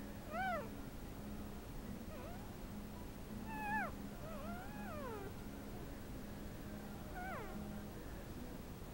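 Newborn puppies squeaking and whining: about five short, high cries that rise and fall, the longest about halfway through sliding down in pitch, over a steady low hum.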